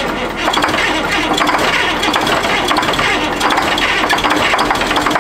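Heavy equipment's diesel engine running steadily in a cold-weather start helped by starting-fluid squirts, a dense, even mechanical clatter.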